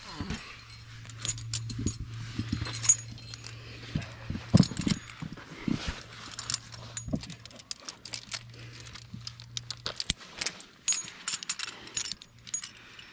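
Metal climbing hardware clinking: carabiners knocking and clipping against a bolted belay anchor's steel chain and ring, in many short, sharp clicks and jangles.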